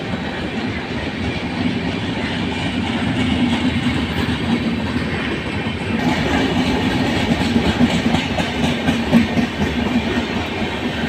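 Passenger train coaches rolling past: a steady rumble of steel wheels on the rails with quick clickety-clack over the rail joints, getting louder and busier about halfway through.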